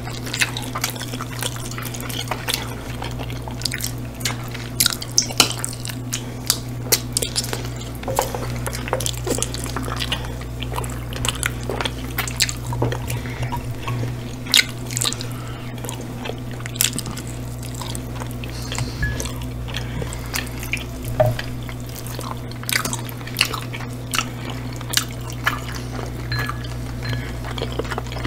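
Close-miked wet chewing and lip-smacking of two people eating hot chicken wings and pizza: a continuous run of short, sticky mouth clicks and smacks over a steady low hum.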